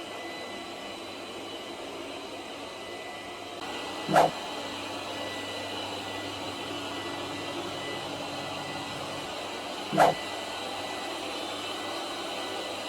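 Şımart Katya T robot vacuum cleaner running steadily, a constant hum with thin high tones, getting slightly louder about three and a half seconds in. Twice, about six seconds apart, a short sharp knock stands out above it.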